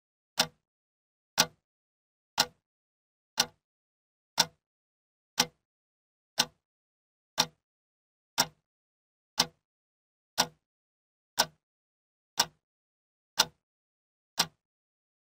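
Ticking like a clock: one short, sharp tick every second, perfectly even, with silence between the ticks.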